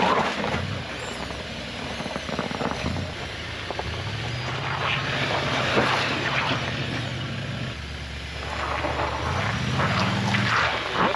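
Off-road vehicle's engine working at low speed over a trail obstacle, the revs stepping up, falling back and rising again, with rough crackling and scraping noise over it.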